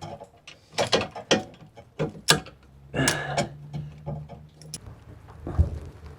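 Hand tool working a metal fitting loose on a pressurized air tank: a string of irregular sharp metallic clicks and ratcheting as the air-gauge fitting is unscrewed.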